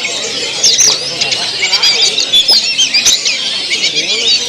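Several oriental magpie-robins (kacer) singing at once, a dense tangle of quick overlapping whistles, trills and sharp chattering notes, as at a songbird contest.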